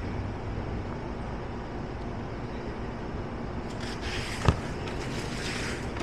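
Steady low background rumble, with one sharp click about four and a half seconds in as a Bosch Professional drill is handled.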